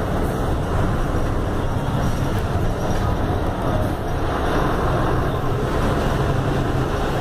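Steady cabin noise of a Mercedes-Benz OF-1519 city bus cruising on a highway: the diesel engine's low drone mixed with road and tyre rumble.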